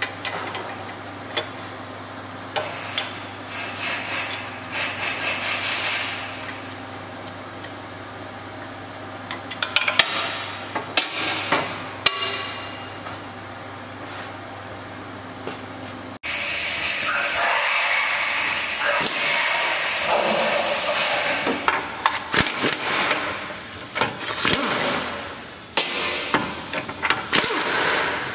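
Tool work on a car's suspension ball joints: metal clanks and a run of rapid metallic strikes, then an abrupt change to a louder, longer stretch of hissing, rattling tool noise broken by knocks.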